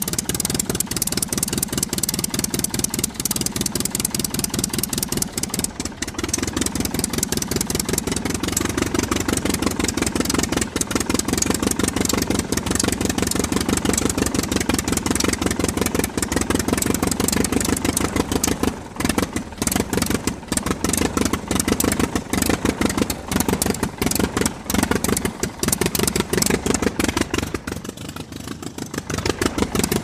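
Aircraft engine running, a steady fast pulsing beat whose speed shifts a little a few times, dipping briefly shortly before the end.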